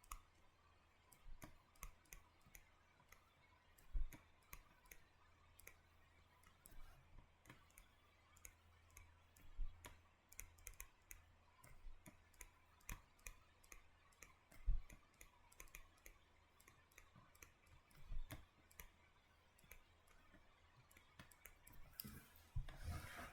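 Faint, irregular clicks and taps of a stylus on a tablet screen during handwriting, a few a second, over a low steady hum.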